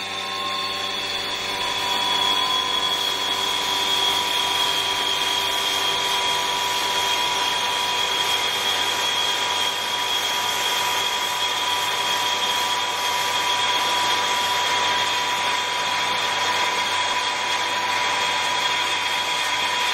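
Refrigeration vacuum pump running steadily with a whining tone, evacuating an R290 hydrocarbon refrigeration system through a manifold gauge set. It settles in over the first couple of seconds, then holds an even pitch and level.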